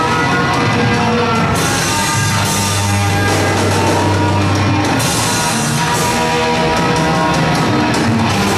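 Heavy metal band playing live at full volume: electric bass and drum kit with repeated cymbal crashes. A long low note is held from about two seconds in to about five.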